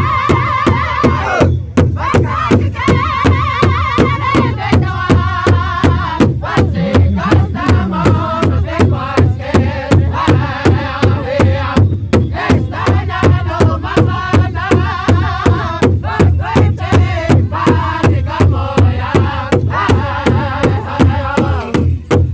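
Powwow drum group singing: several drummers strike one large shared powwow drum together with sticks in a steady, even beat while the singers sing high, wavering lines in unison. The beat and singing drop out briefly about two seconds in and again just before the end.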